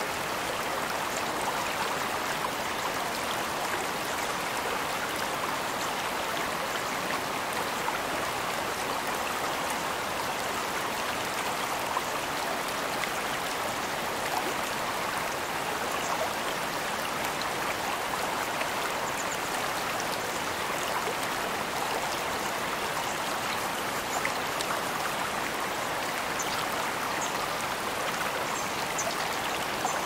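Mountain creek water running steadily, a continuous even rush of flowing water.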